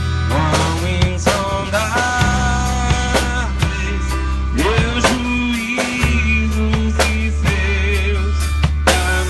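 Band music: a drum kit keeps a steady beat under a sustained bass line, with a lead melody that slides and wavers in pitch.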